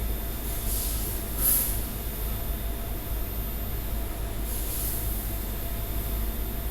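Automatic TIG welding rig running: a steady low electrical hum, with swells of high hiss about a second in and again near the five-second mark.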